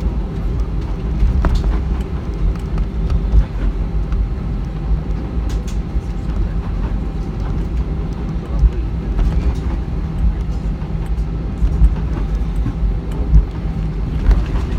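Airbus A320 jet engines and airframe heard from inside the passenger cabin on the ground before takeoff: a steady low rumble at a constant level with a faint steady whine, and a few light clicks and rattles scattered through.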